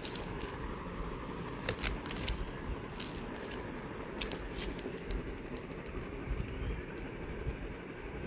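Clear plastic sleeve around a small painting crinkling and crackling as it is handled, with scattered sharp clicks over a low steady rumble.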